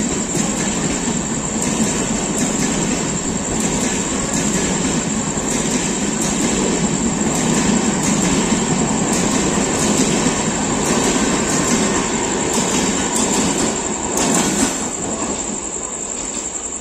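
Kutch Express passenger coaches rushing past close by at speed, a steady rumble and roar with wheels clacking over the rail joints about once a second. The rush falls away about fifteen seconds in as the last coach goes by.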